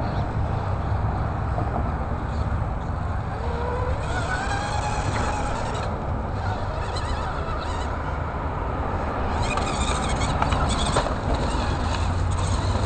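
Radio-controlled rock crawler's electric motor and gears whining faintly as it climbs over boulders, rising in pitch about four seconds in, over a steady low rumble.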